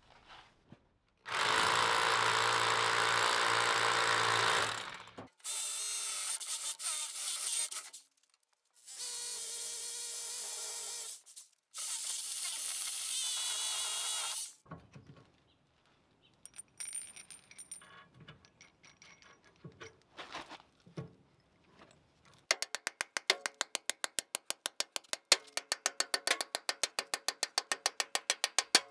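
A power drill runs in four steady bursts of a few seconds each, drilling holes into the concrete pad for the anchor bolts that hold the converter's steel mounting bracket. After some small metal clinks, a ratchet wrench clicks rapidly and evenly as the nuts are run down on the bolts.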